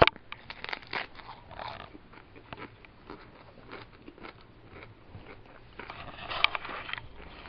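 A Hermann's tortoise biting and tearing at a pale leaf, heard as irregular small crunching clicks. A louder rustling stretch comes near the end.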